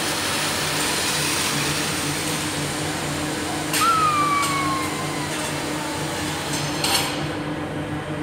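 Grand Éléphant mechanical elephant: water spray hissing from its trunk for the first few seconds over the steady hum of its machinery. About four seconds in a sharp falling squeal sounds, and a short knock comes near the end.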